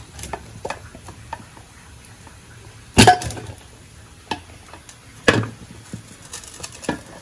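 Aluminium pressure cooker being opened: sharp metal clanks as the lid is twisted loose against the pot, the loudest about three seconds in and two more near the end, with lighter clicks and scrapes between.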